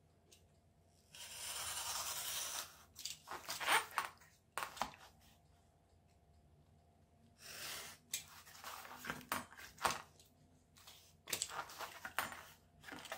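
Utility knife blade drawn through thin cardboard along a steel ruler: one long scraping cut about a second in and a shorter one past the middle, with scattered clicks and taps as the knife and ruler are moved and set down.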